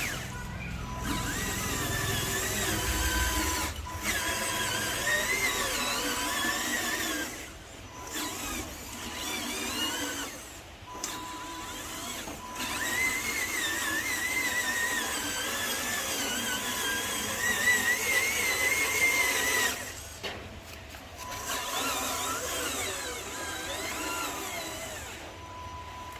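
Small electric motors of a radio-controlled bulldozer whining, the pitch wavering up and down as the throttle changes, with several short pauses.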